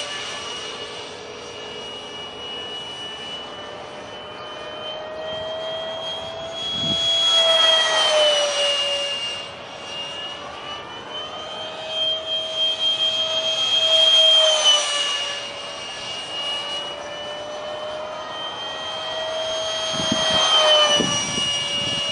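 70mm electric ducted fan (Detrum combo) of an RC foam jet whining in flight. It swells louder three times as the jet passes by, and the pitch drops after each pass.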